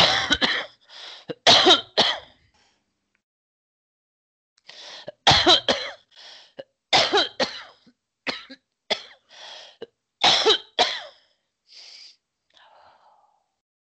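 A person coughing and clearing their throat in a series of short, harsh bursts. There is a cluster at the start, a pause of about two seconds, then a longer run, with a few fainter ones near the end.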